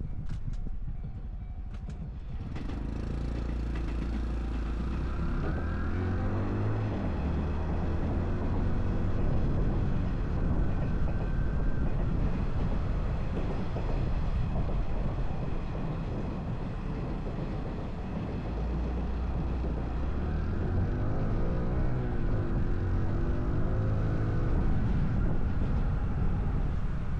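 Honda Cub 125 cc single-cylinder motorcycle engine and exhaust while riding. It is quieter for the first two seconds or so, then pulls away, rising in pitch as it accelerates about five seconds in and again about twenty seconds in, with a steady low rumble between.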